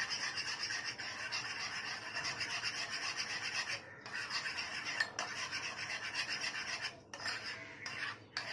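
Spoon stirring and scraping inside a small cup, mixing warmed gelatin into a little thick cheesecake batter. It is a quick, steady rasping that breaks off briefly about four seconds in and again near the end.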